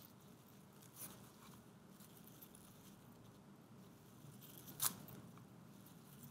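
Fresh spinach being picked apart by hand: faint rustling of leaves with small snaps as stems break, the sharpest snap a little before five seconds in.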